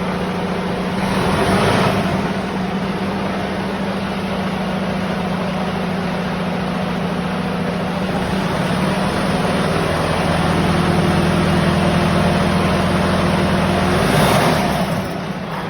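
A vehicle engine running steadily, with a louder rush of noise about a second and a half in and another near the end.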